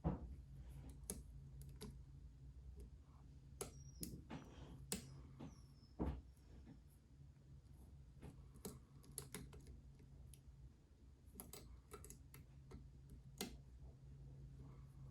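Faint, irregular metallic clicks and ticks of a lock pick working the pins of a challenge lock under tension, a few louder clicks scattered through, over a faint low hum.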